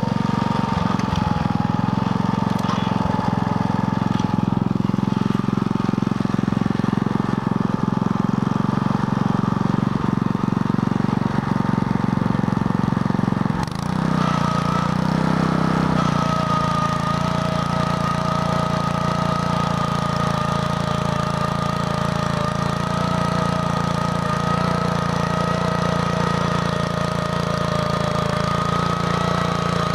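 Engine of a BCS 850 walk-behind tractor running steadily while it drives a Berta rotary plow through hard clay sod. About 14 seconds in the sound briefly dips and changes, then settles into a steady run with a thin whine over the engine.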